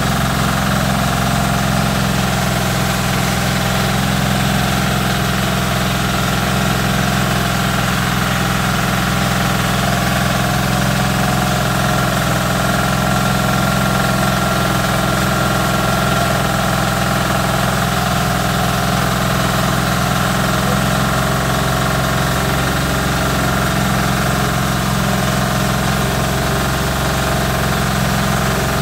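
Small stationary engine and the paddy rice mill it drives, running together under load with a steady, unchanging drone as grain feeds from the hopper.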